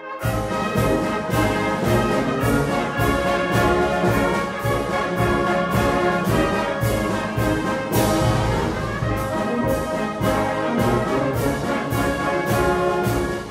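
Brass band music: sustained brass chords over a steady percussion beat.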